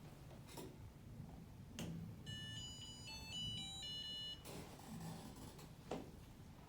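Vending machine's electronic beeper playing a short tune of quick high beeps for about two seconds as the machine reboots. A few faint clicks come before and after it.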